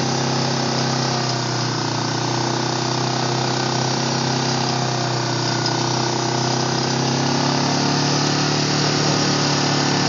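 ATV engine running steadily under way, an even low drone that gets a little louder near the end.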